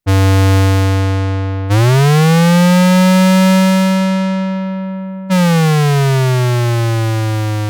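Moog Werkstatt-01 analog synthesizer playing a bright, buzzy low note, then gliding up about an octave into the next note and later sliding back down, showing its glide (portamento). Each note turns duller as it sustains.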